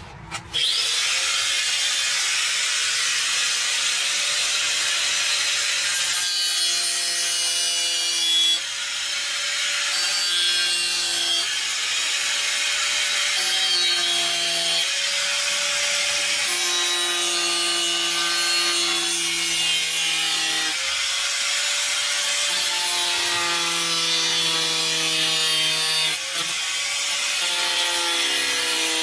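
Electric angle grinder starting up about half a second in and cutting into the metal of a truck door, a steady grinding whine whose pitch dips and recovers every few seconds as the disc bites.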